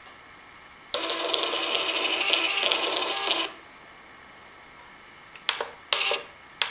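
Bixolon receipt printer printing a block of text, a rapid mechanical buzz lasting about two and a half seconds. Later come a few short whirs as the paper is advanced with the feed button.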